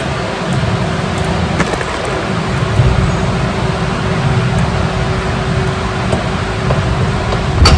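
Steady low rumbling background noise with a faint steady hum, and one sharp knock near the end.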